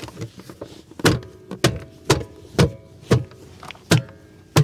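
Tesla Cybertruck's two-piece plastic aero wheel cap being pressed back onto the wheel. It gives a run of about seven sharp plastic clicks, roughly two a second, each with a brief ring, as the pieces seat into place.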